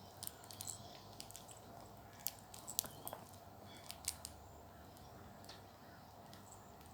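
Faint, scattered clicks and taps from a baby flying fox playing with a baby toy, over a low steady hum.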